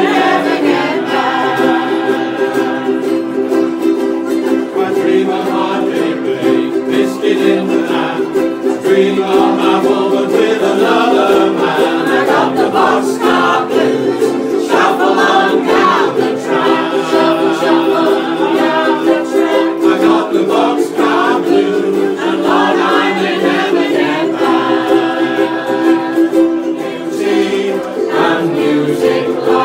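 A group of ukuleles strummed together in a steady rhythm, with several voices singing a song over them.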